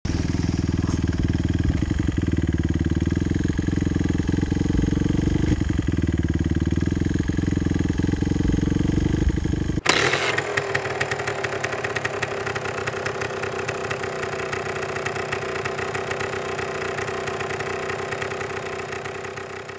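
Dirt bike engine running as it rides a rough forest track, heard from the bike itself. About halfway through it cuts suddenly to a steadier, brighter engine sound that fades near the end.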